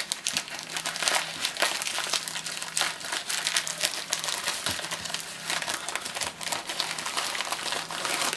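Packaging crinkling and rustling without pause as a small package is opened and handled by hand, with a faint steady hum underneath.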